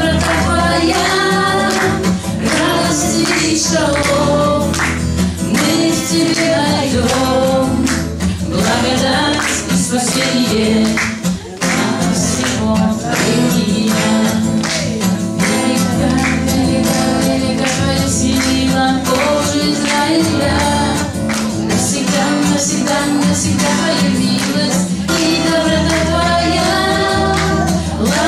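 A woman singing a Christian worship song in Russian, accompanying herself on a strummed acoustic guitar.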